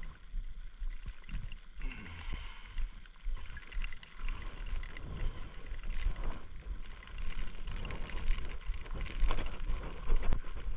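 Wind buffeting the microphone in wet, blustery weather: an uneven low rumble with scattered rustles and clicks, and one sharp click near the end.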